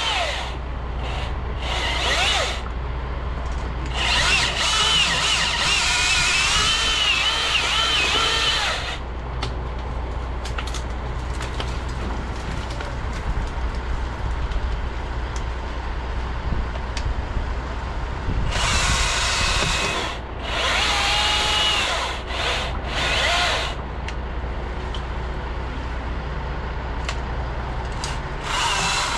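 Milwaukee battery-powered chainsaw cutting wood in several bursts. Its electric motor whine rises and dips in pitch through each cut, with the longest runs about four seconds in and again past the middle. A steady low hum runs underneath.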